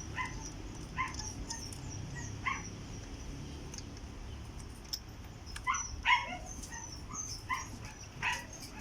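A dog barking in short, separate yips, about eight times, several close together near the end, over a low steady rumble.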